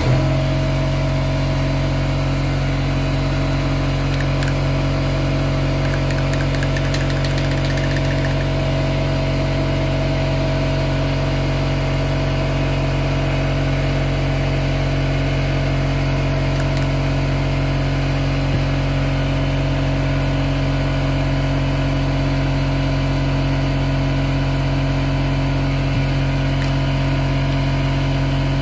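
Airbrush air compressor motor running with a steady hum.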